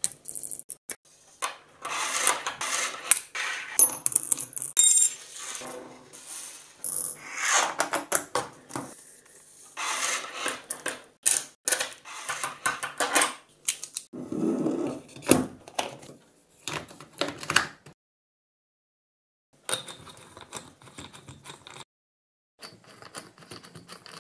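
Small metal gears and plastic gearbox housing parts of a cordless drill clinking and clattering against each other and the table as the planetary gearbox is reassembled. There are many sharp metallic clicks and taps, some with a brief ring, in irregular bursts broken by short silent gaps.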